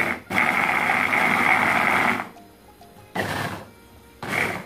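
Electric mini food chopper's motor running in pulses as it coarsely chops corn kernels: one run of about two seconds, then two short pulses near the end.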